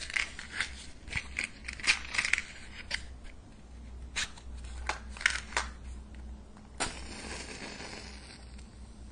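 A wooden match is taken from a matchbox with a series of small clicks and rattles. About seven seconds in, it is struck on the box with a sharp scrape and flares with a short hiss.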